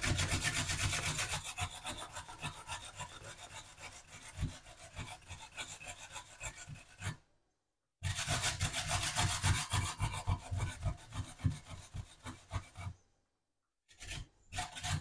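Food being grated on a metal box grater: quick repeated scraping strokes in three runs, broken by short pauses about seven and thirteen seconds in.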